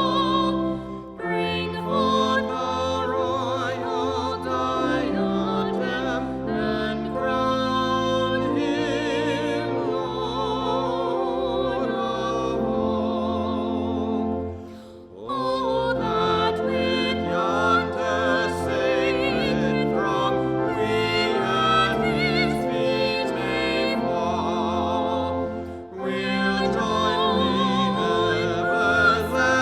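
Classical-style singing with wide vibrato over instrumental accompaniment, sung in phrases with brief pauses about one, fifteen and twenty-six seconds in.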